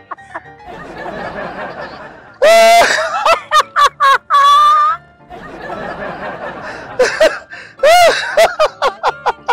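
A man's loud, deliberately exaggerated laughter: rapid ha-ha pulses and high shrieking whoops, with one long held high cry about four seconds in, in bursts separated by quieter breathy stretches.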